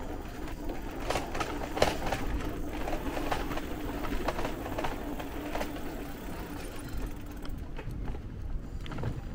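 Electric bike with a 48 V 1000 W rear hub motor rolling over cobblestones: a steady motor whirr under irregular rattles and knocks from the wheels and frame on the cobbles, which thin out near the end.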